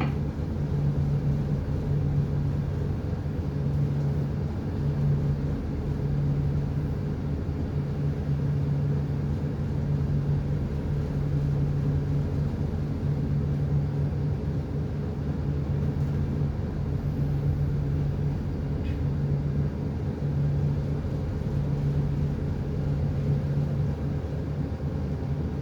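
Marine diesel engine running steadily: a low, constant drone with a hum that swells and eases every second or two, as the vessel manoeuvres slowly during berthing.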